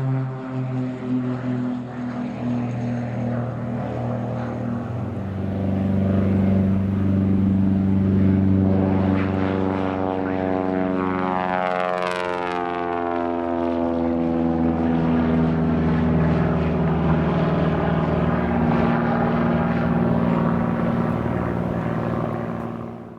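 Propeller airplane's piston engines running at high power as it goes past, the engine note falling in pitch about halfway through as it passes.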